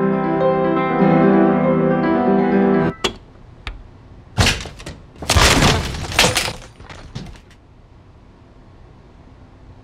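Solo piano music breaks off suddenly about three seconds in. A couple of small clicks at a doorknob follow, then a sharp thump and a loud crash of a door being forced open, dying away about two seconds later.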